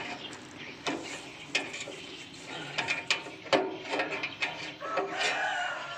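Irregular sharp clicks and knocks of metal parts being handled, about ten spread over six seconds.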